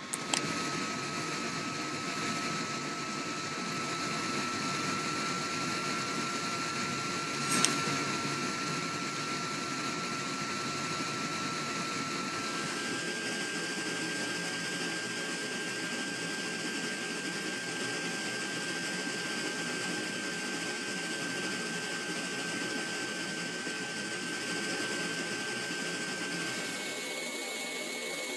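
Steady hiss of noise with a thin, pure held tone. The tone steps up in pitch about halfway through and again near the end, and there is a single sharp click about seven and a half seconds in.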